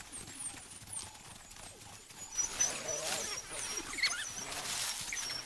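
African wild dogs squeaking and twittering over food, a string of short, high, wavering chirps that grows busier about halfway through, with faint rustling.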